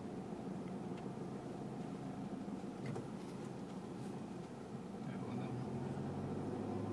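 Toyota Hilux SW4 diesel running on the move, heard inside the cabin: a steady low engine drone with road and tyre noise.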